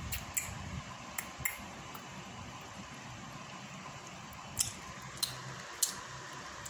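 A cat grooming itself, its tongue licking its fur and paw in short, wet clicks, about seven of them scattered unevenly, over a faint steady low hum.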